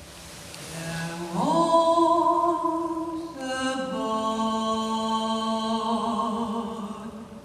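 A woman's unaccompanied voice singing two long wordless notes. The first scoops up steeply about a second in and is held. The second is lower and wavers with vibrato before fading near the end.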